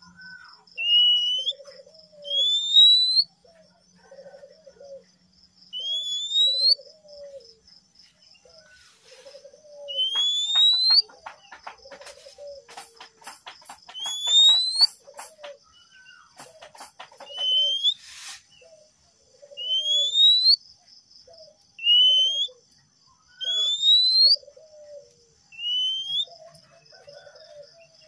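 Male oriental magpie-robin (kacer) singing: a clear rising whistle repeated about every two seconds, set over lower warbling notes. A run of rapid clicks comes in the middle.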